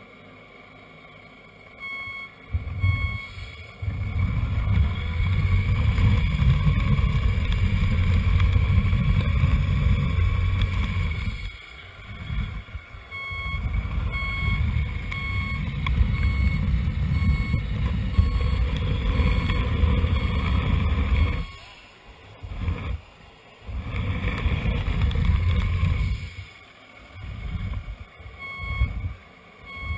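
Reversing beeper of a radio-controlled model vehicle's sound unit: short, evenly spaced beeps in several spells, over a low rumble that comes and goes.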